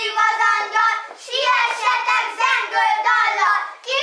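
A group of young children singing together in high voices, holding long notes at first and then moving through shorter phrases.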